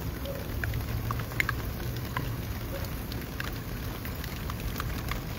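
Steady heavy rain with scattered drops splashing, over a low steady rumble, as rainwater runs out through a drain hole at the foot of a concrete block wall.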